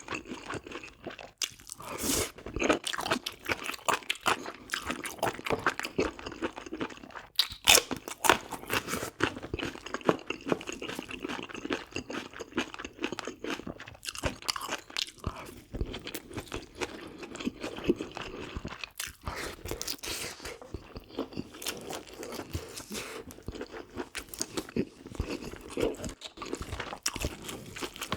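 Close-miked chewing and biting of spicy braised pork ribs with bean sprouts, with steady wet crunching and irregular clicks of the mouth, a little louder a couple of times.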